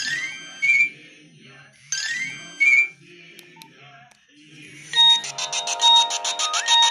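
Nokia 1110i mobile phone playing its built-in ringtones. A short electronic phrase ending in a rising chirp sounds twice, about two seconds apart. From about five seconds in, a different, denser tone takes over with a fast, even pulsing beat.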